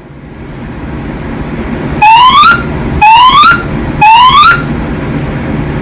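Fire alarm evacuation speaker sounding three loud rising whoop tones, one a second, each about half a second long, starting about two seconds in. This is the three-pulse temporal evacuation signal that alternates with the recorded fire announcement.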